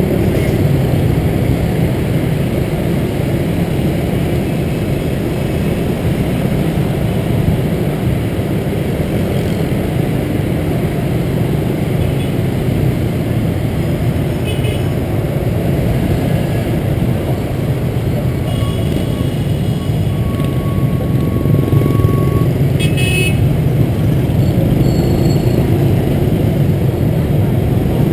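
Motor scooter riding in dense motorbike traffic: a steady engine and road rumble. Short horn beeps from the surrounding scooters cut in now and then, most of them between about nineteen and twenty-three seconds in, one of them held longer.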